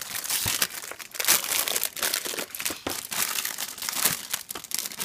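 Clear plastic bag crinkling and crackling continuously as it is handled and pulled off a boxed instrument.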